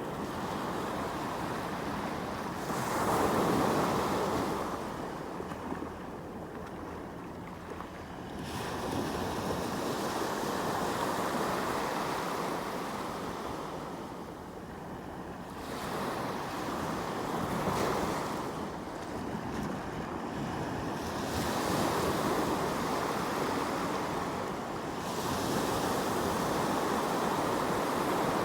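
Sea waves washing in: a steady surf noise that swells into five louder rushes several seconds apart, each fading back down.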